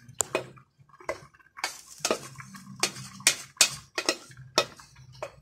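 A wooden spoon scrapes and knocks against a metal pot, about a dozen irregular knocks, as sautéed tomato dressing is scraped into a pot of boiling lentils. The boil bubbles over a low steady hum underneath.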